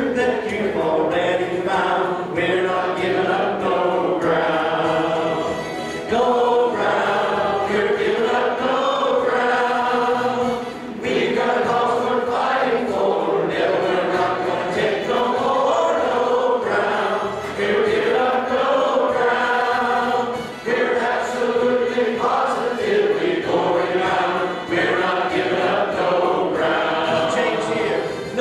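Church congregation singing a hymn together in long held phrases, with a man's voice leading through a microphone.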